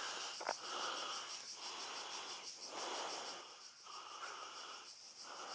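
A person breathing heavily and evenly near the microphone, about one breath a second, over a steady high chirring of insects.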